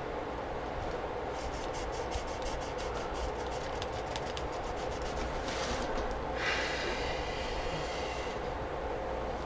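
Black marker working on a paper journal page: a run of quick light ticks and scratches, then a short rasp and a squeaky scrape about six seconds in, over a steady room hum.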